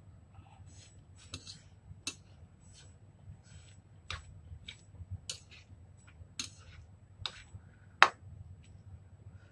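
Metal chopsticks clicking against a ceramic bowl as a heap of noodles is stirred and picked up, a dozen or so irregular sharp clicks with the loudest about eight seconds in, and soft eating noises between them.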